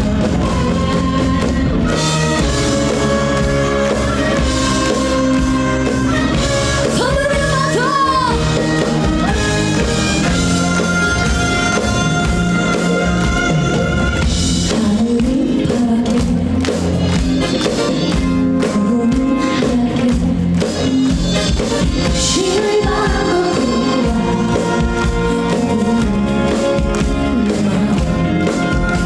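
A live band plays a song with a woman singing over it.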